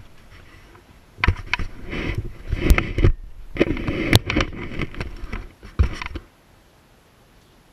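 Close handling noise inside a vehicle cabin: rustling and scraping with several sharp knocks, lasting about five seconds and stopping abruptly.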